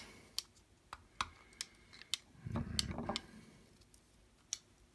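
Scattered small clicks and taps as a folding knife's handle and lock parts are handled and worked apart. A duller, longer handling sound comes about two and a half seconds in.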